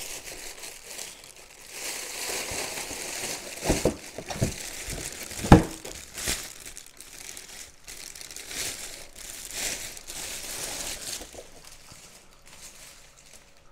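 Plastic wrapping bag crinkling and rustling as it is handled and pulled off a packed item, with a few sharp knocks in between, the loudest about five and a half seconds in.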